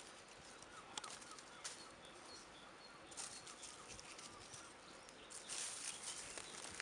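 Faint outdoor ambience with a few short, high bird chirps and occasional light clicks.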